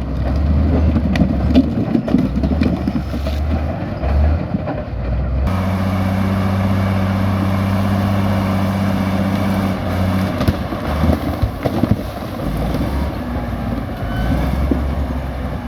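Komatsu crawler bulldozer's diesel engine working, with scattered knocks and clanks. About five and a half seconds in the sound switches abruptly to a steady engine hum for a few seconds, then turns uneven with more knocks.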